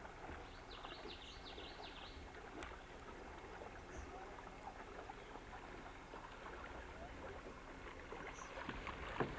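Faint sound of canoe paddles dipping and splashing in shallow river water. About a second in comes a quick run of high chirps.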